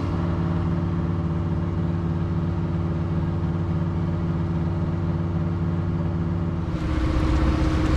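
A boat engine running steadily at an even pitch. About seven seconds in, the sound changes abruptly to a rougher engine note with more hiss.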